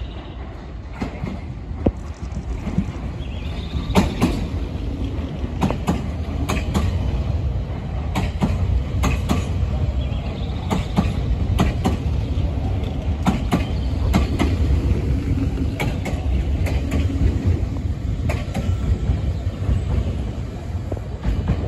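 Nankai 6000 series stainless-steel electric train, two sets coupled, passing through the station without stopping. A steady low rumble runs under repeated sharp clacks of the wheels over rail joints.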